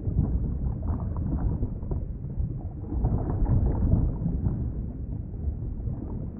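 Underwater ambience: a steady, muffled low rumble of water with faint crackling, swelling a little in the middle.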